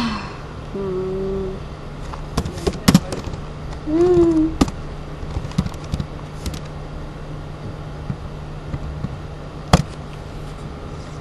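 Scattered sharp clicks over a steady low hum, with two short hummed voice sounds, one held level about a second in and one rising and falling about four seconds in.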